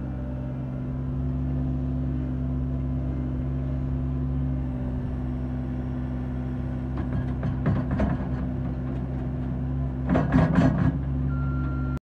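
Cat 236B skid steer's diesel engine running steadily as its loader bucket empties a load of dirt into a steel dump truck bed. Two spells of clattering and thudding come as the load falls in, about seven seconds in and again near the end.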